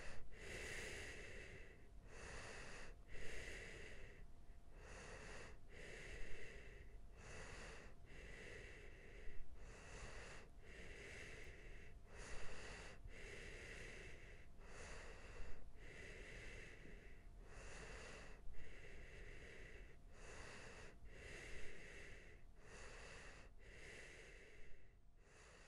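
Heavy rhythmic breathing, about one breath a second, with a short, louder catch about every three seconds. It fades out near the end.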